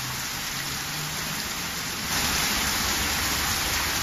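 Heavy downpour: rain hissing and splashing on a flooded paved court and standing water, growing louder about two seconds in.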